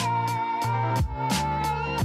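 Background music: an instrumental track with a steady drum beat under a held melody line.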